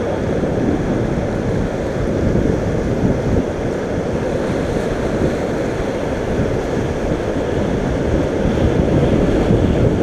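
Rushing whitewater of a fast, rocky river rapid with wind buffeting the microphone, a loud, steady noise.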